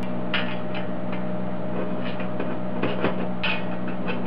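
Light metallic clinks and taps from a stainless steel sheet-metal heat shield and a small hand tool as its two halves are fastened together: a few irregular strikes over a steady low hum.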